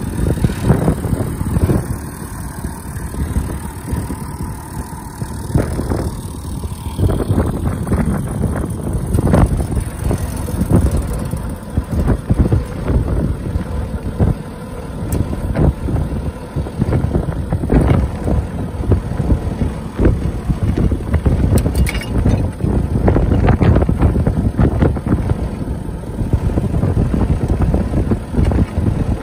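Massey Ferguson 399 tractor's six-cylinder Perkins diesel engine running steadily.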